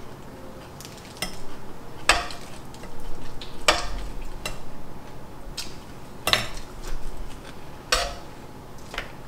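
Metal tongs clacking and tapping on the cooking surface of an electric griddle as shrimp are set down one at a time: a series of sharp, separate clinks about a second or so apart. Near the end a metal spatula knocks and scrapes on the griddle.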